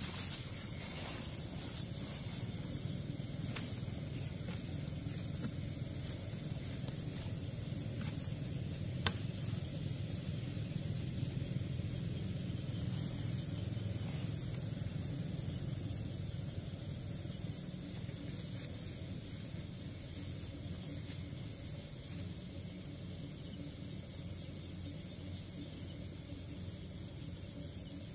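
Steady chorus of crickets and other night insects, a high-pitched trill over a low rumble, with a few faint knocks and one sharper click about nine seconds in.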